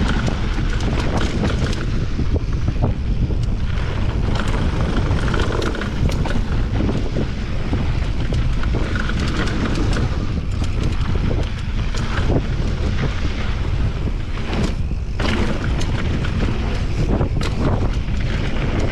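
Wind rushing over the camera microphone during a fast mountain-bike descent. Tyre noise and many short clicks and knocks run through it as the bike goes over rough trail.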